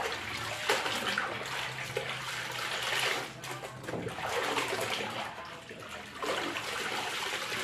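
Water sloshing and splashing as wet clothes are handled in the wash tub of a twin-tub washing machine, the swishing rising and falling in surges over a low steady hum.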